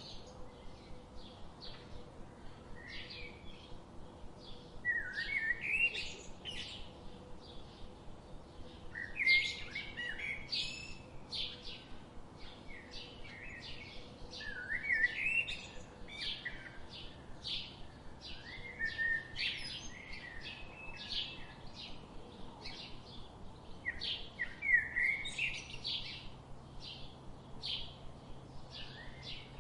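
Songbirds chirping and singing. A louder short zigzagging phrase recurs about every five seconds, with quick high chirps, about two a second, in between.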